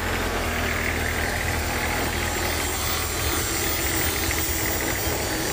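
Hitachi EX15-2 mini excavator's diesel engine running steadily.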